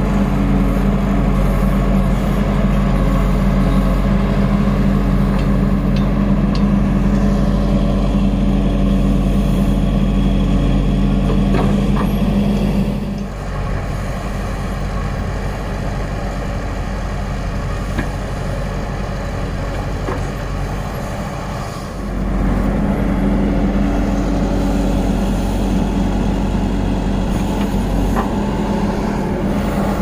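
Diesel engine of an ACE AX-124 backhoe loader running steadily while its backhoe digs. It drops quieter for several seconds around the middle, then comes back up, with an occasional faint clank.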